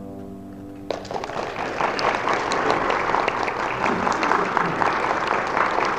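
The last note of a cello dies away, then an audience breaks into applause about a second in and keeps clapping.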